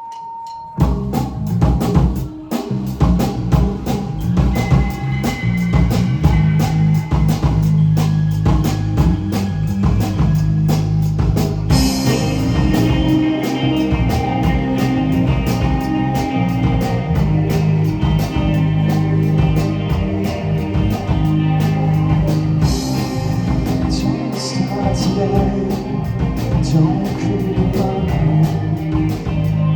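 Live rock band playing loudly: drum kit, electric guitar and bass, starting about a second in. The cymbals grow brighter about halfway through and again later.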